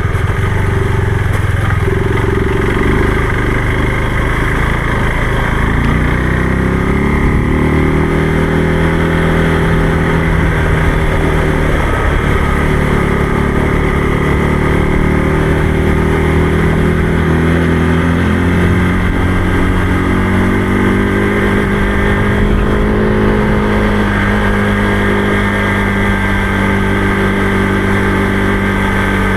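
Motorcycle engine running while riding, its pitch rising and falling with the throttle; the note climbs about six seconds in and settles higher in the second half.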